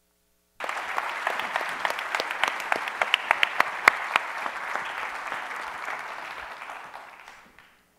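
Audience applauding. The applause starts abruptly about half a second in, then thins and fades out near the end.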